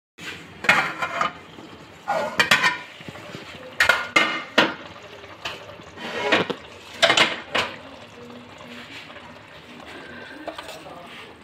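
Steel pot lid clanking and ringing against a steel cooking pot, about seven metallic knocks over the first eight seconds, then quieter.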